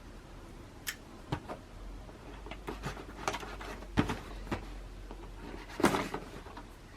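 Handling of a light stick and its packaging: a scatter of small clicks, taps and light knocks, about half a dozen, irregularly spaced.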